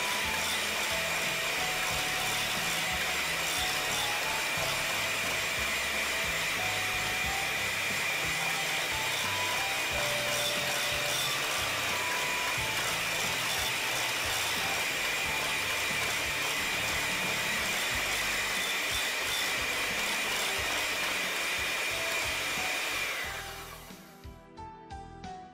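Electric hand mixer running at high speed, its beaters whipping buttercream in a glass bowl, a steady motor noise with a constant high whine. The mixer cuts off about a second before the end.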